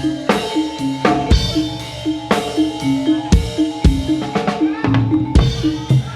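Live band music led by loud drums, with heavy drum hits about once a second and lighter strokes between them, over a short repeating melodic figure.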